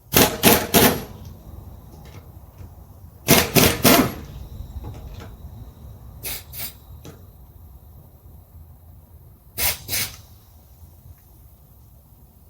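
Socket wrench working a wheel's lug nuts: short groups of sharp metal clicks, three or four at a time, four times over with pauses between.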